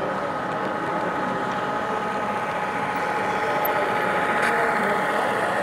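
HO scale model diesel locomotive running across a model trestle bridge: a steady running sound with a thin steady whine, growing slightly louder about four seconds in as the locomotive passes.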